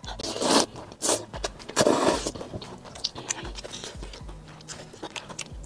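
Close-up mouth sounds of someone eating rice noodles: loud slurps of noodles and broth, about two big ones in the first half, then wet chewing and small clicks.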